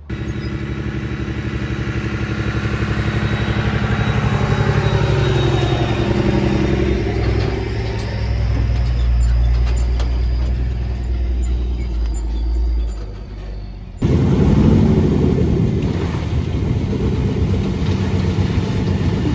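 A vehicle engine running under way, its low note swelling and shifting over several seconds. About two-thirds of the way through it cuts suddenly to another engine running steadily with a deeper rumble.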